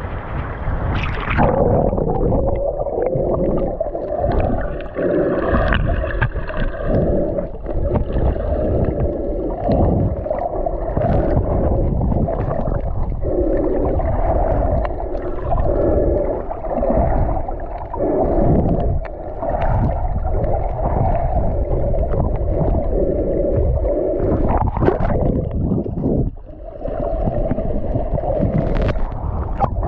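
Muffled underwater sound from a snorkeler's camera: water sloshing and gurgling in irregular surges every second or two.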